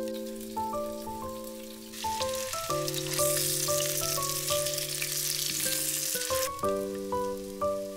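Deep-fried tofu cubes sizzling in hot oil in a frying pan. The sizzle starts about three seconds in and cuts off sharply a few seconds later, over background music.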